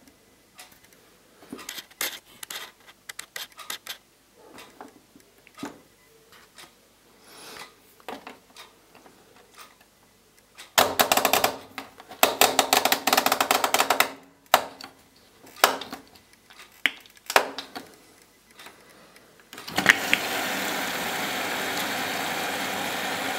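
Constructa Contura washing machine being set going: scattered clicks and knocks, a few seconds of dense rapid clicking about halfway, then a click and a sudden steady rush of water as the machine begins to fill for the wash.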